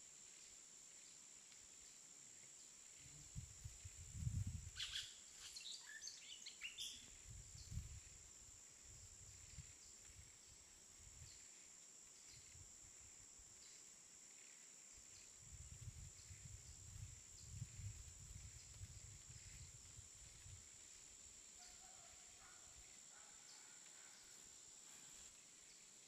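Faint outdoor ambience of light wind gusting on the microphone, as low rumbles in two spells, over a steady high hiss. A few short bird chirps come about five to seven seconds in, and fainter calls near the end.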